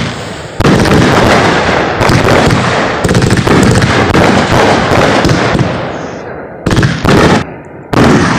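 Aerial fireworks bursting overhead: a rapid series of loud booming breaks one after another, fading briefly, then three more sharp bursts near the end.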